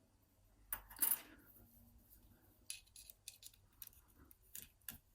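Small metallic clinks and ticks of the levers of a Union five-lever mortice lock being handled and worked out of the open lock case: two louder clinks about a second in, then a scatter of light ticks.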